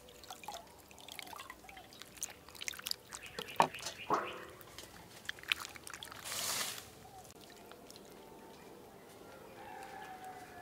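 Raw pig intestines squeezed and rinsed by hand in a metal bowl of water: wet squelches, drips and small splashes, with a longer splash of water about six seconds in.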